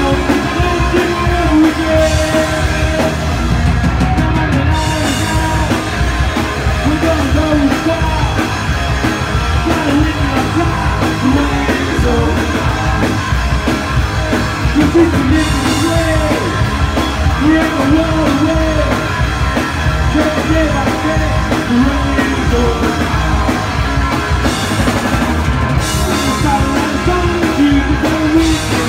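Live rock and roll band playing a song: a male lead vocal sung over electric bass, electric guitar and a drum kit.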